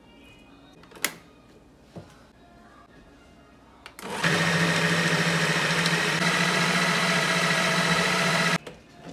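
Ninja food processor motor running at full speed for about four and a half seconds, its blade chopping raw beef chunks into mince, then cutting off suddenly. A few sharp clicks come before it starts, the last as the start button is pressed.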